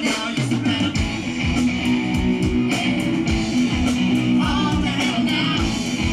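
Live amplified rock band playing: electric guitars over drums keeping a steady beat.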